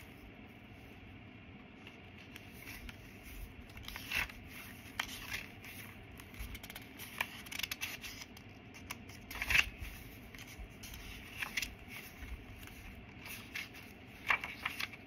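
Paper pages, cards and tags of a handmade junk journal being handled and turned: scattered soft rustles, scrapes and light taps, the loudest about two-thirds through.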